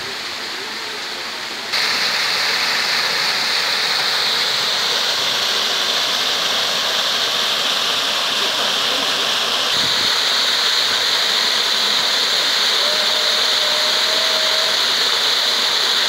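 Spring-fed waterfall: water dripping from a stone arch, then pouring over it and splashing into a stone channel, a steady rush that steps up in loudness about two seconds in and again about ten seconds in.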